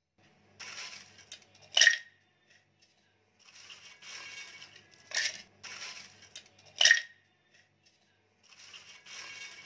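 Handling sounds of a blender's grinder jar and a glass bowl: three sharp clinks, roughly every one and a half to three seconds, with quieter scraping and rattling between them.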